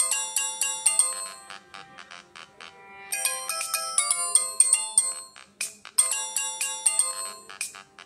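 Infinix Note 11 smartphone ringing with an incoming call: a quick melodic ringtone of bright bell-like notes, the phrase repeating about every three seconds.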